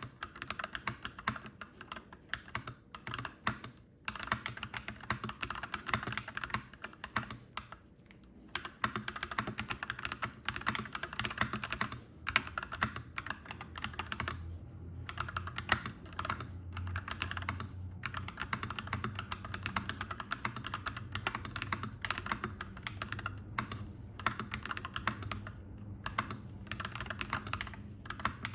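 Clacky mechanical keyboard typing: fast, continuous keystrokes broken by short pauses. A low rumble swells underneath in the second half.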